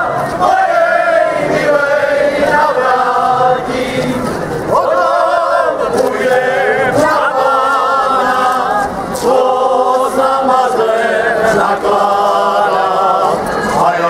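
A group of voices singing together in chorus, in sung phrases with short breaks between them.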